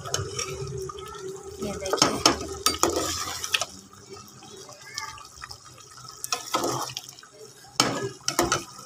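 A metal spoon stirring rice cooking in watery curry in an aluminium pot, with the liquid sloshing and several sharp knocks of the spoon against the pot.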